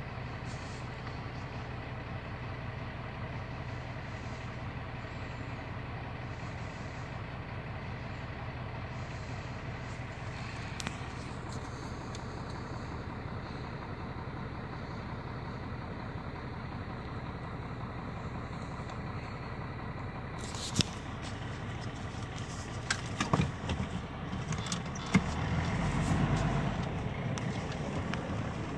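A steady, unchanging mechanical hum, like an idling engine. A few sharp knocks and rustles come in the last several seconds.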